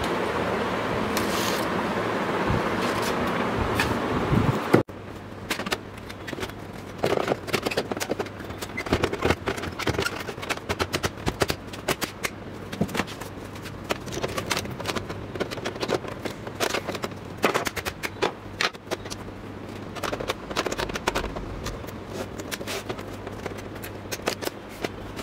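Canon LBP2900 laser printer running with a steady mechanical whir for the first few seconds, cut off suddenly. Then many irregular clicks, knocks and scrapes of the printer's plastic casing and rear cover being handled and fitted back on.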